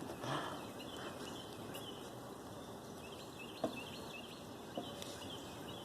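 Quiet outdoor background with faint, scattered bird chirps, and two small clicks about three and a half and five seconds in.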